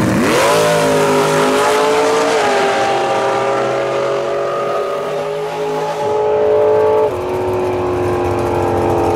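Drag cars, a first-generation Chevrolet Camaro and a pickup, launching at full throttle: the engine note sweeps sharply up off the line, then holds a steady high pitch as they run down the strip. The note steps down about seven seconds in.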